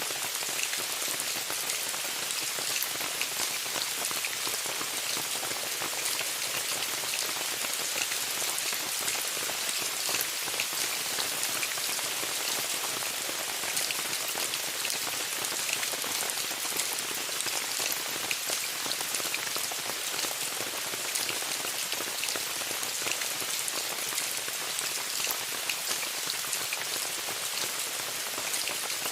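Steady rain falling on a tent: a constant hiss with many small, sharp drop taps on the fabric, unchanging throughout.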